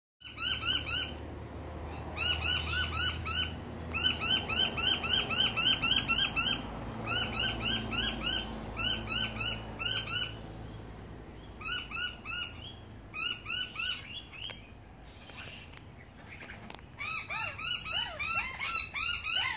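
Birds calling in rapid runs of sharp, repeated notes, several a second, in bouts of one to three seconds separated by short pauses.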